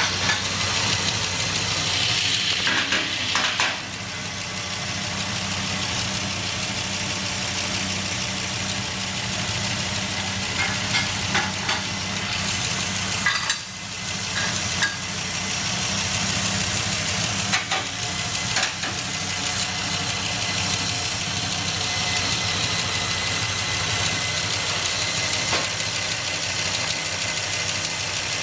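Ram SRT pickup's engine idling steadily, a low even hum with a hiss over it. A few short ticks or clicks are scattered through it, the sharpest about halfway in.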